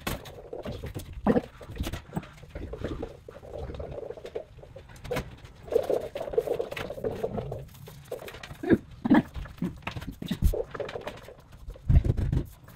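Aluminum door frame being polished by hand with a pad and cloth: irregular rubbing and scratching of the cloth on the metal, with short clicks. A few dull knocks near the end.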